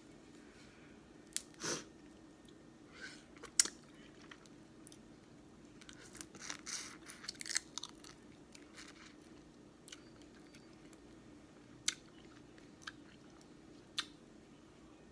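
Close-up eating of a seafood boil: wet chewing and smacking with sharp cracks and snaps of crawfish and crab shells being broken open, a busier run of crackling about halfway through. A faint steady low hum sits underneath.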